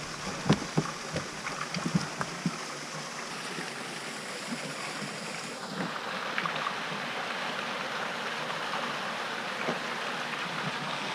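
Steady wash of water and wind around a small fishing boat, with several light knocks in the first couple of seconds.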